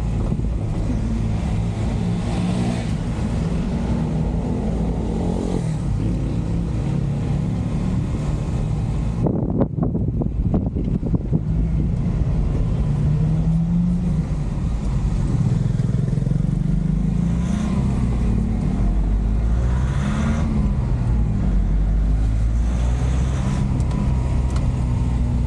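Diesel engine of a JAC truck running, heard from inside the cab, its note rising and falling several times as the truck pulls along at low speed. A short stretch of knocks and rattles comes about ten seconds in.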